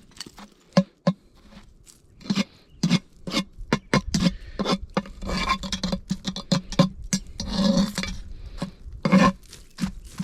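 Cooking utensils knocking and scraping in a pan: a quick, irregular run of clinks and knocks with rasping scrapes in between.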